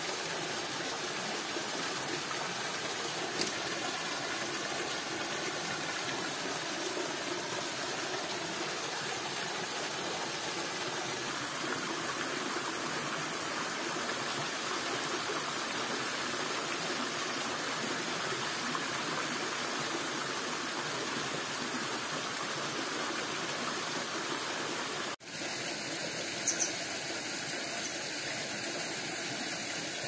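Waterfall water rushing, a steady even roar of falling water. There is a brief break about 25 seconds in, after which the rush goes on with a slightly different tone.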